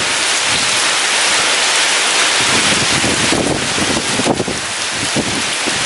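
Heavy rain with strong wind: a dense, steady hiss of rain, swelling slightly around the middle, with gusts of wind rumbling underneath.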